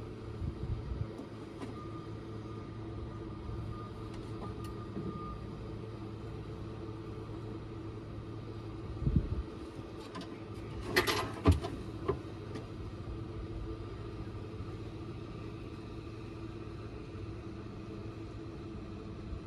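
Steady low mechanical hum, like a running motor, with a few knocks about nine and eleven seconds in and a brief noisy rush around eleven seconds.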